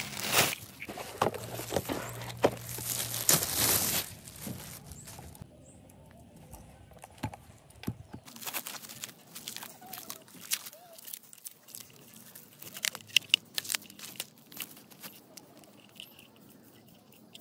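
Hands-on handling noises: rustling and scraping with clicks for the first few seconds, then quieter, with scattered light clicks and taps.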